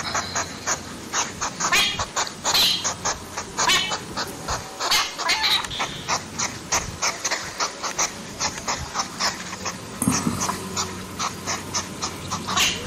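European hedgehog snuffling and sniffing as it forages through grass: a quick, irregular run of small clicks and puffs, several a second, with a few short squeaky sniffs in the first half.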